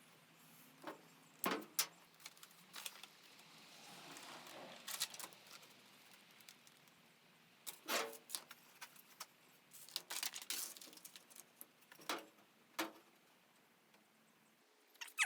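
Clicks, clinks and light metallic rattles of small parts and tools being handled, irregular and scattered, with a soft rustle about four seconds in.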